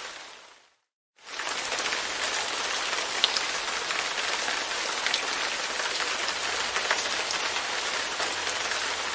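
Light rain falling on a window pane: a steady hiss with occasional single drops ticking sharply. The sound fades out, stops for a moment just before a second in, then fades back in and holds steady.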